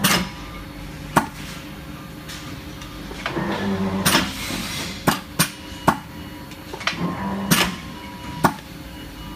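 Chicago D&K mechanical press brake being cycled: a series of sharp metallic clunks and clicks, with two short stretches of machine running noise as the ram travels, the ram set to stop at 160 degrees of crank rotation each stroke.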